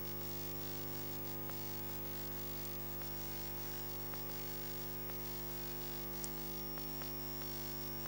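Steady electrical mains hum with a layer of hiss, and a faint click about six seconds in.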